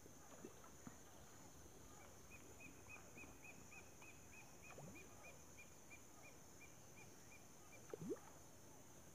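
Near-silent outdoor ambience: a steady high insect drone, with a faint run of about four chirps a second for several seconds and a brief rising sound near the end.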